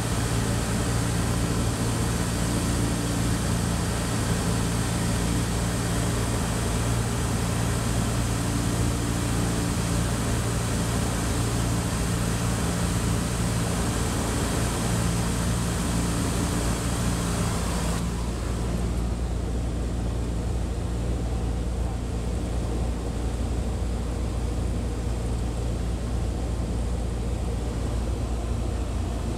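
Cessna 152's four-cylinder engine running steadily in flight, a low drone under a strong rush of airflow over the outside-mounted camera. About two-thirds of the way through, the high airflow hiss drops away abruptly, leaving mostly the low engine drone.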